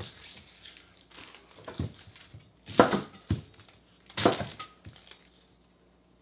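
Dry, papery onion skin being peeled off by hand, crinkling and tearing in several short bursts, with a few light knocks among them.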